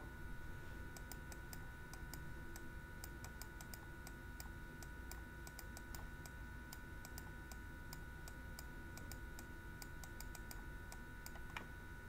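Faint, irregular clicks and taps of a stylus on a pen tablet as an equation is written by hand, over a faint steady whine.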